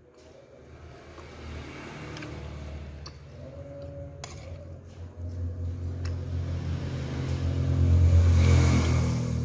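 A low engine rumble that grows steadily louder and is loudest shortly before the end, with a few light clicks of a metal spoon and fork against the plate.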